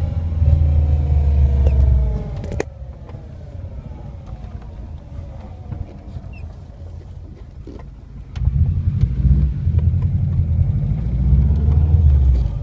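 Subaru WRX making an unidentified noise: a loud low rumble that drops away after about two seconds and comes back about eight seconds in, with faint whining tones slowly falling in pitch in between and a sharp click near the start. The owner does not know what causes it.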